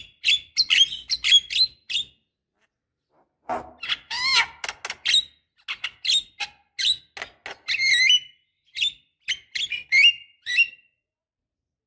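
Javan myna calling: quick runs of short, sharp, squeaky chirps and whistled notes, with a pause of about a second and a half early on and a denser burst in the middle.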